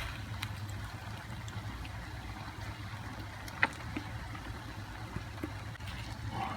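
Pan of mussels cooking on the stove in onion, oil and lemon juice: a steady low rumble with a faint hiss, and a sharp click of a utensil against the pan about three and a half seconds in.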